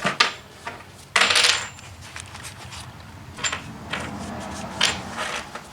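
Small metal tool pieces clinking and rattling as they are handled, with a short hissing scrape about a second in and scattered sharp clicks after.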